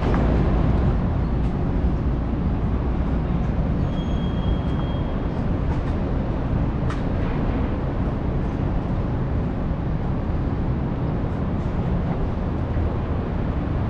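Steady low rumble of city street traffic, with a brief high squeal about four seconds in.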